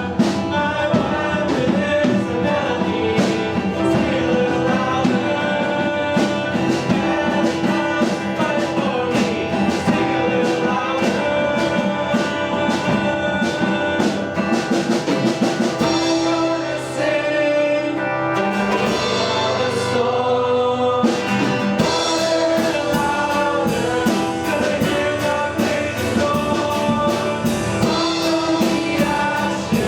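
A worship song: singing over a band with drum kit and guitar, keeping a steady beat. The drums drop back for a few seconds past the middle, then the full beat returns.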